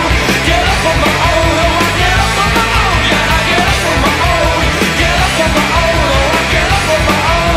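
Loud rock song with a singing voice over a dense band backing.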